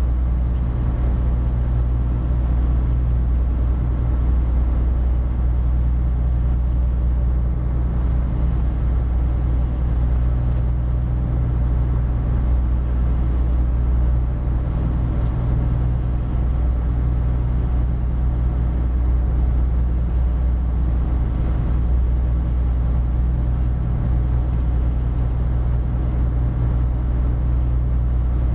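Spits barge's diesel engine running steadily under way, a constant low drone heard inside the wheelhouse while it drives the laden ship upstream.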